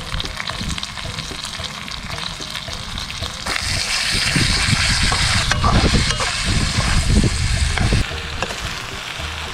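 Chunks of parrotfish, bell peppers and eggplant sizzling in a hot wok while being stirred with a ladle. The sizzle grows louder about three and a half seconds in as the food is turned, with light knocks of the ladle against the pan.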